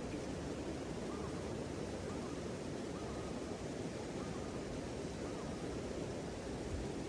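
Steady outdoor rushing noise, with a few faint short chirps in the first half.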